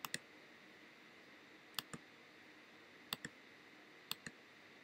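Computer mouse button clicked four times at irregular intervals, each click a quick pair of ticks as the button goes down and comes back up.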